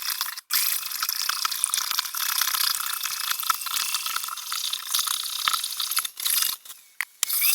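Eggs and sugar being beaten in a mixing bowl, a dense run of quick clicks and scraping. The sound cuts out briefly about half a second in and again near the end.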